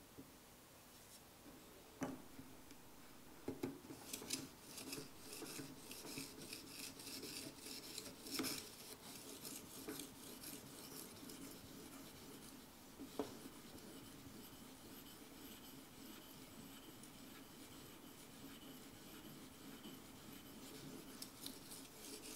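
Edge Pro Apex sharpener's abrasive rubbed in quick strokes along the edge of an ESEE-4 knife blade, a faint scratchy rasping with a few light knocks. The strokes grow quieter and steadier in the second half.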